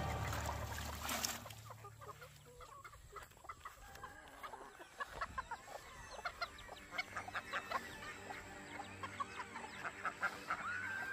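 Chickens clucking: many short clucks that grow busier after the first few seconds. Near the end a rooster starts a long crow.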